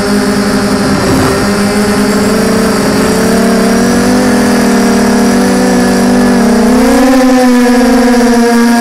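FPV quadcopter's motors and propellers buzzing, heard up close through the onboard camera. The pitch holds steady, then rises and wavers about seven seconds in as the throttle comes up.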